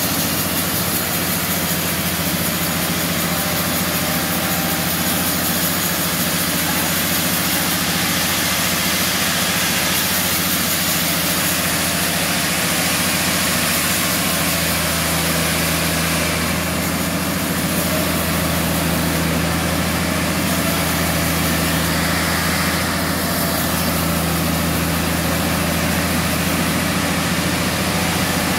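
Large band sawmill running steadily: a continuous loud mechanical hum and hiss that does not break.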